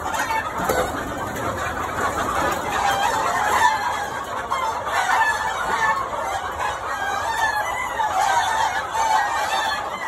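A large flock of chickens, many of them roosters, clucking and calling over one another in a dense, continuous chorus, with crowing among the calls.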